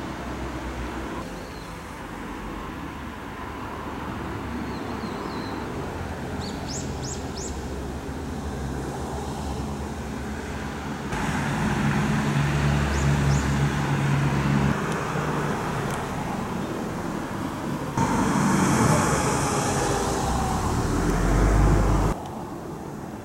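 Road traffic outdoors, with a few short bird chirps about seven and thirteen seconds in. Near the end a vehicle passes louder, and the sound cuts off abruptly.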